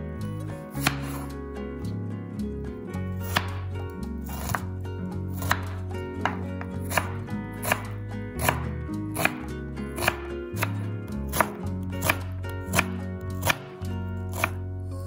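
A chef's knife chopping a red onion on a bamboo cutting board, with sharp, evenly paced strikes of the blade on the board about one and a half times a second. Background music with bass notes plays underneath.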